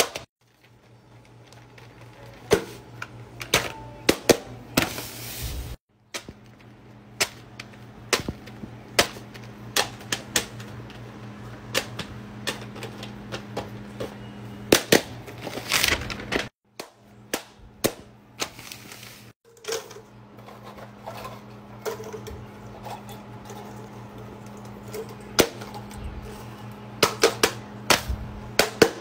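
Silicone push-pop fidget toys being pressed and popped by hand: a run of sharp pops and clicks at uneven intervals, broken by a few very brief silences.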